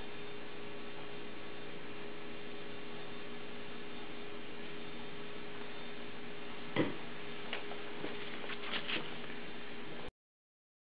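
Room tone with a steady electrical hum, broken by one sharp knock about seven seconds in and a few faint ticks after it; the sound then cuts off abruptly to silence near the end, as the recording stops.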